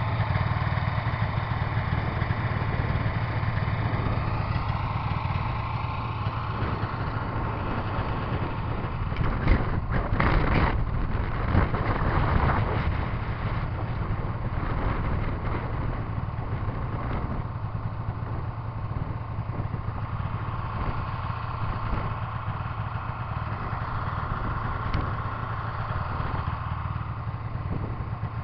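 Polaris snowmobile engine running steadily, with a short cluster of sharp knocks about a third of the way through.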